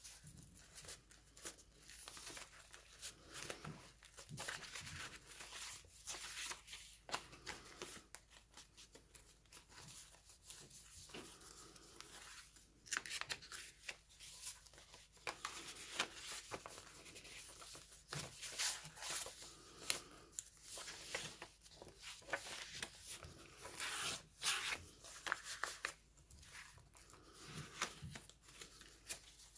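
Paper pages, tags and pockets of a handmade paper journal being turned and handled: paper rustling with many quick flicks and soft taps.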